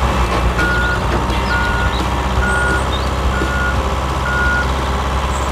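Vehicle reversing alarm: five short beeps at one steady pitch, about one a second, over the steady low drone of an engine, as the tractor backs up to the tanker trailer.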